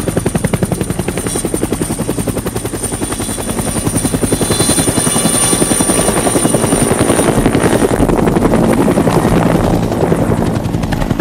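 Mi-24 attack helicopter flying low: rapid, even chop of the main rotor blades over a steady high turbine whine. It grows louder through the middle and eases slightly near the end.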